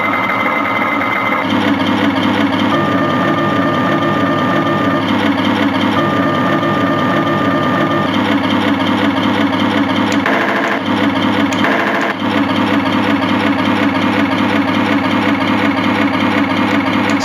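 Simulated German Tiger tank engine sound from a Heng Long TK6.1 RC tank sound board, running steadily through a speaker. A thin whine comes in twice, and two short, brighter sounds come in near the middle.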